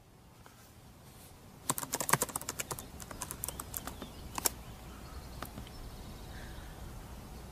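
An irregular run of sharp clicks over a faint steady low hum, bunched between about two and four and a half seconds in, with one last click a second later.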